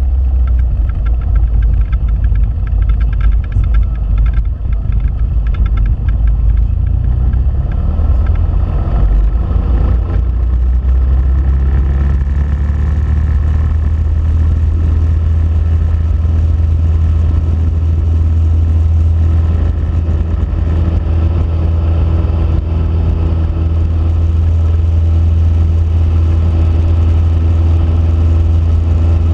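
Cessna 172P's four-cylinder Lycoming engine and propeller at takeoff power during the takeoff roll and liftoff, a loud steady drone heard inside the cabin.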